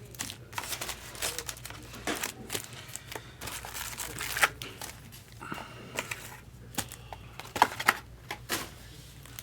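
Trading card pack wrappers crinkling and tearing as packs are opened, with irregular sharp crackles and clicks of wrapper and cards being handled.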